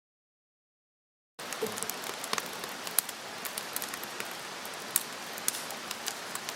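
Silence for about a second and a half, then rain falling steadily, with many irregular drops ticking sharply on nearby surfaces.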